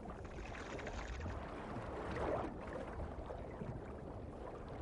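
Water sloshing and lapping, as from an animal moving through shallow water.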